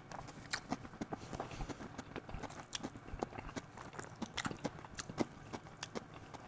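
Close-miked chewing: a person's mouth chewing a soft pork-belly and egg omelette, giving quiet, irregular wet clicks several times a second.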